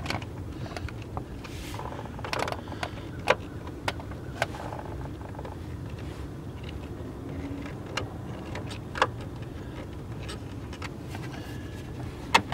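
Scattered sharp clicks and taps from a hand screwdriver working the mounting screws of a plastic tail-light assembly as they are tightened by hand. A steady low rumble runs underneath.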